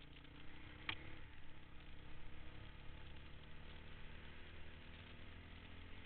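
Honda dirt bike engine running steadily while riding a dirt trail, with one sharp click about a second in.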